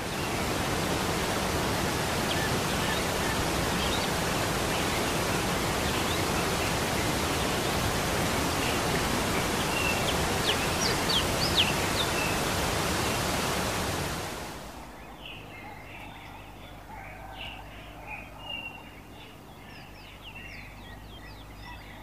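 Spring water rushing steadily through a shallow stone wash basin, loud and even, with birds chirping over it; about fourteen seconds in, the rush fades out over about a second, leaving quieter birdsong.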